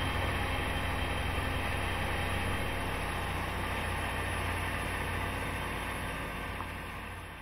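Case IH Magnum tractor engine running steadily under load while pulling a nine-furrow plough through the field, with a deep steady hum; the sound fades out near the end.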